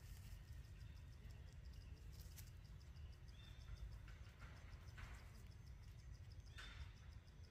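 Near silence: faint forest ambience with a low steady rumble and a high insect ticking at about four a second, broken by a few brief rustles.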